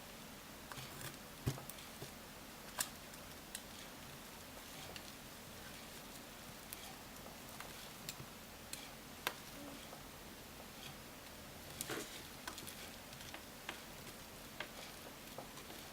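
Irregular small clicks and taps as a thin blade-type pry tool works an iPhone 5 screen assembly loose from its frame, over a faint steady hiss.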